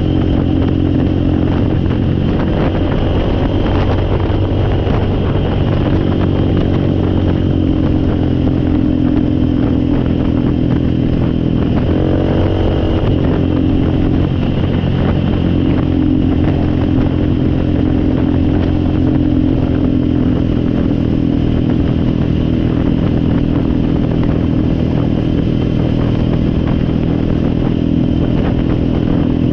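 An engine running steadily, with a brief dip and rise in pitch about twelve seconds in.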